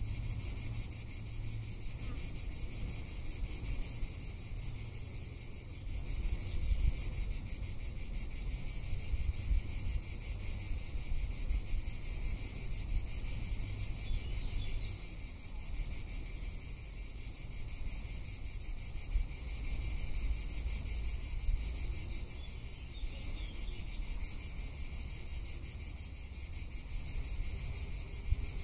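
Cicadas singing in a steady, high, shrill chorus that does not let up, with wind rumbling on the microphone underneath.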